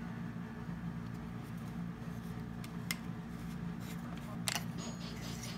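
Hard plastic handling sounds from a lightstick's handle being gripped and twisted apart, with a faint click about three seconds in and a sharper scrape about four and a half seconds in. Faint pop music plays in the background.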